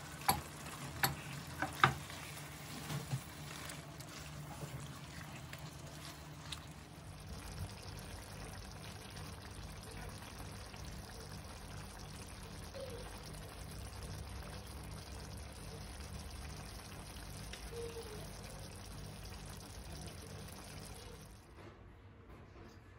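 Chicken livers simmering in tomato sauce in a frying pan: a steady sizzle and bubbling. A few sharp clicks of a utensil against the pan come in the first two seconds, and the sound drops away near the end.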